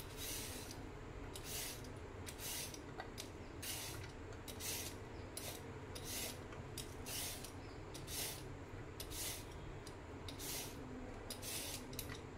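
Y-shaped vegetable peeler scraping down a raw carrot, taking off strips of skin in repeated short strokes, about one a second.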